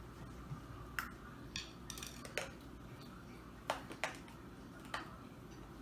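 Someone biting and chewing an uncooked, hard dry noodle: about half a dozen sharp, irregular crunches and clicks.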